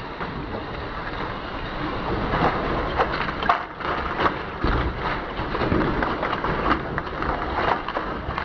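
Heavy tow truck being dragged through the snow toward the drop-off: a continuous rough scraping and grinding noise with irregular cracks and crunches, loudest in the middle.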